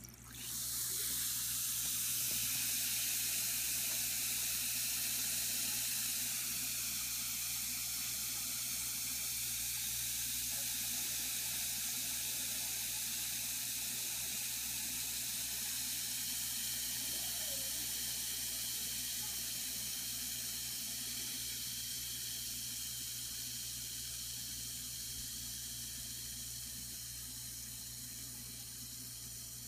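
Mani bomb (a small fizzing bath bomb for hand soaks) fizzing as it dissolves in water. It is a fine hiss that starts suddenly as the bomb hits the water, is strongest in the first few seconds, and slowly fades as the bomb dissolves.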